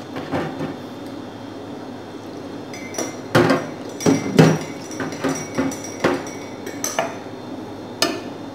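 A metal ladle clinking and knocking against a glass clip-top jar and other kitchenware: a quiet stretch, then a series of about ten separate sharp clinks from about three seconds in, a couple of them ringing briefly.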